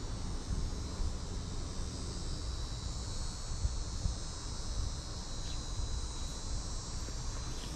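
Steady, high-pitched chorus of insects chirring outdoors, with a low rumble underneath.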